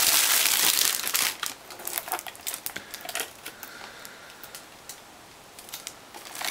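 Packaging crinkling and rustling loudly for about the first second as the router is unwrapped, then scattered light rustles and clicks of handling.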